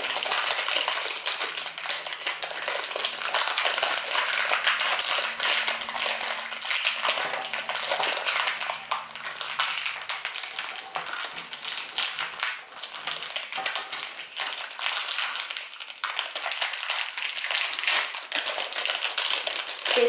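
Fast, continuous plastic clicking and crinkling: the layers of a MoYu WeiLong GTS 3x3 speedcube being turned in the hands, and clear plastic wrapping being crumpled and pulled off a new cube.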